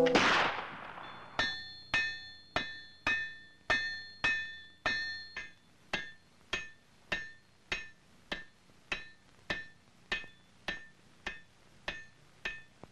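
A crash dies away, then a blacksmith's hammer strikes an anvil at a steady pace, a little under two blows a second. The first several blows ring clearly, and later ones are shorter and duller.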